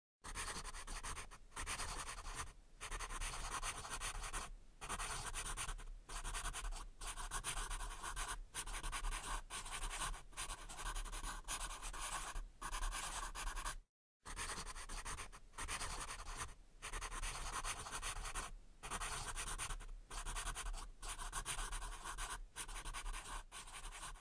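Scratching like a pen writing on paper, in strokes of a second or two broken by short pauses, over a steady low hum. It cuts out completely for a moment about fourteen seconds in.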